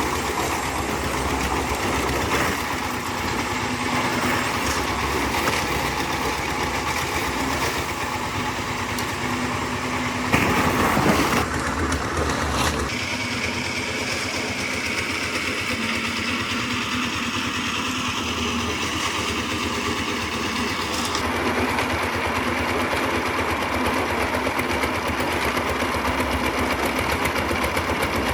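A small engine running steadily with a fast even chatter, with a brief louder stretch about ten seconds in.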